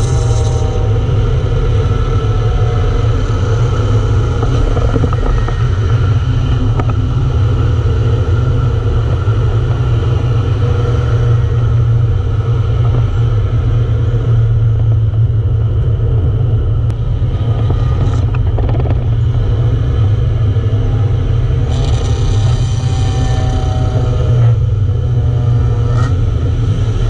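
Steady low engine drone and tyre and road noise heard inside a car cruising at an even highway speed.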